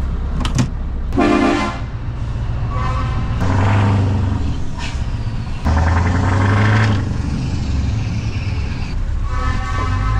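Lorry engine running as the lorry pulls away, heard inside the cab, with several horn toots of about a second each over the engine's low rumble.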